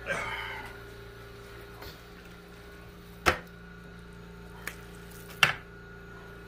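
Thick buffalo chicken dip being scraped out of a metal sheet pan with a spatula onto another tray. Two sharp knocks against the metal baking tray come about three and five and a half seconds in, with a few lighter taps between.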